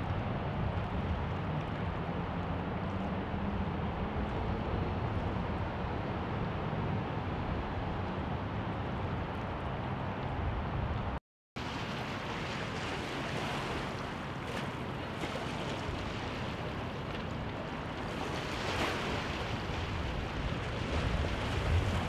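Steady riverbank ambience of a passing river boat's low engine drone, with wind buffeting the microphone and water movement. The sound cuts out for a moment about eleven seconds in and comes back brighter and more windswept.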